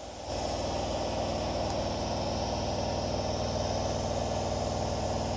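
A Nagoya subway Tsurumai Line train standing at the platform, its on-board equipment humming steadily with a fast low pulsing.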